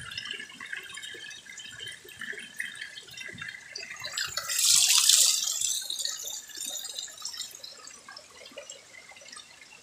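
Stream water trickling and burbling steadily, with a brief loud hiss of noise about halfway through.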